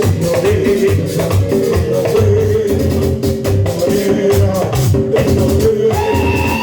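Merengue band playing: a fast steady rhythm with shaken percussion over a pulsing bass and a sustained melody line.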